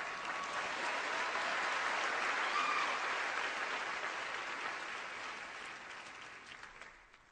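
Theatre audience applauding, swelling to a peak and then dying away.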